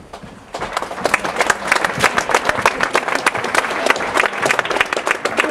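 Spectators applauding. Dense clapping starts suddenly about half a second in and keeps up steadily.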